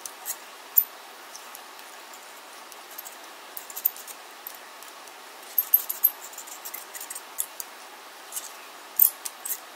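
Irregular light metallic clicks and clinks, with a cluster about six seconds in: a 1-inch Hot Tools curling iron being handled, its spring clamp opening and closing on strands of hair.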